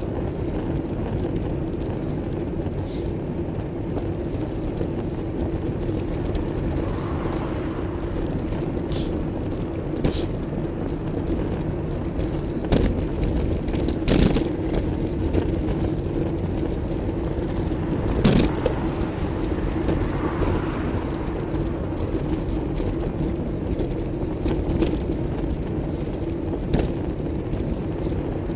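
Riding noise picked up by a handlebar camera on a road bike: steady wind and tyre rumble with a low hum, and motor traffic going by. Sharp knocks and rattles come now and then as the bike jolts over bumps and patched road, the loudest ones around the middle.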